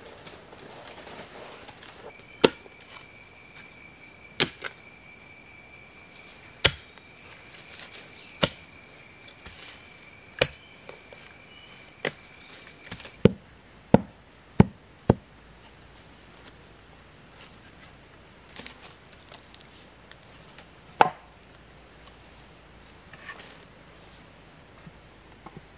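Wood being struck with a tool: sharp, single chopping or knocking blows, about one every two seconds at first, then four quick ones in a row around the middle, and a last one later on.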